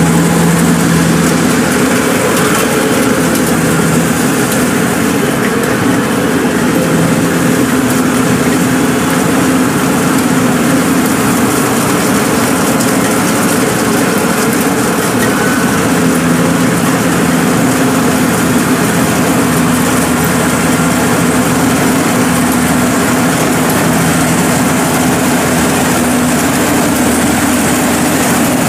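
Zoomlion EH100E rice combine harvester's diesel engine and machinery running steadily under load while cutting and threshing, a continuous drone with a low hum that swells and fades every few seconds.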